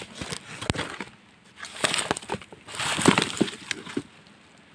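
Dry coconut husks rustling, crackling and knocking as they are pulled apart and shifted by hand, with two busier bursts of rustling midway before it settles.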